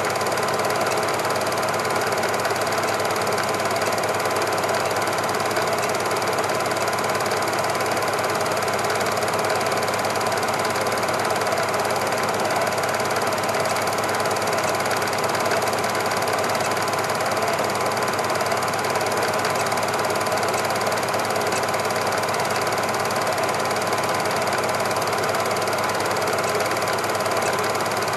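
Cine film projector running, a steady, even mechanical clatter that does not change.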